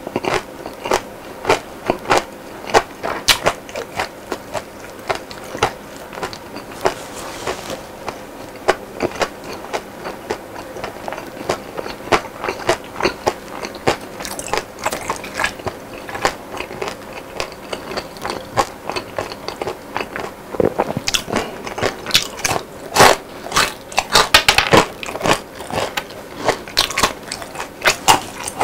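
A person chewing crispy fried food close to the microphone: dense, irregular crunches and crackles, with a heavier run of crunching about three-quarters through.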